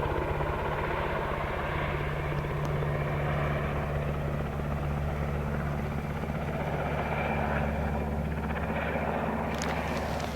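UH-60 Black Hawk helicopter flying overhead: a steady rotor and turbine drone with a deep, even hum that holds at one level.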